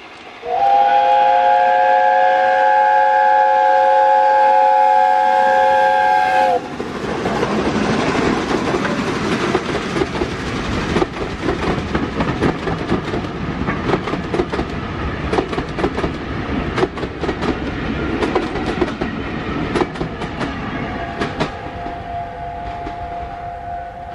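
Steam locomotive's chime whistle sounds one long blast of about six seconds. The train then passes close by, with a heavy rumble and the clatter of wheels over rail joints. Near the end the chime whistle sounds again, fainter.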